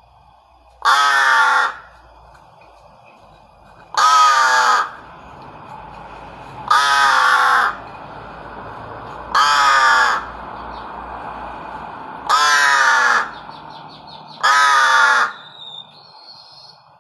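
A crow calling: six loud, harsh caws, each under a second long, spaced about two and a half to three seconds apart.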